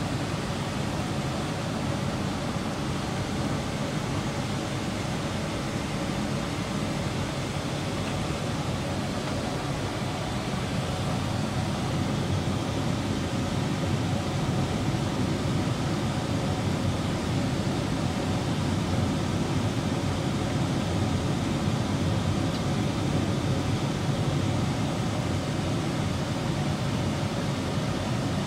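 Steady airliner cabin noise in flight: an even, low rush of engine and airflow noise that does not change.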